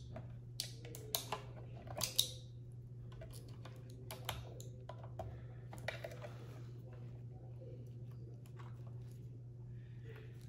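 Small plastic clicks and handling noise as motor sensor-wire connectors are pushed into the ESC's ports. The clicks come thick in the first couple of seconds, then sparser, with a brief soft rustle of wires about six seconds in, all over a steady low hum.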